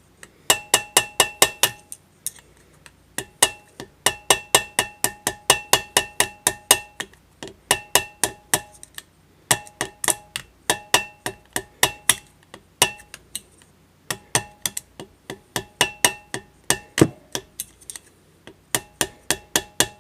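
A hammer beating on a steel punch against metal parts, fast blows of about five a second in runs of one to two seconds with short pauses, each blow ringing.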